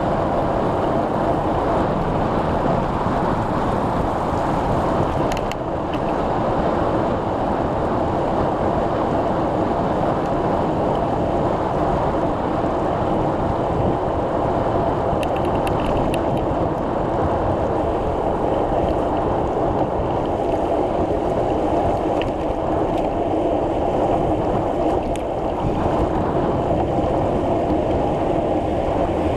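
Steady wind rush and tyre hum from a bicycle ride, heard on a camera riding along with the bike, with a few faint clicks.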